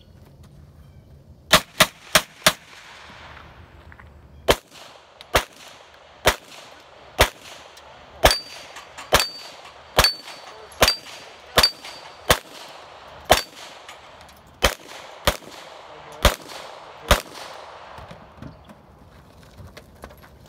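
Handgun shots fired from inside a pickup truck's cab at steel targets: four in quick succession, then a steady string at roughly one a second, about nineteen in all. Steel plates ring after several of the shots in the middle of the string.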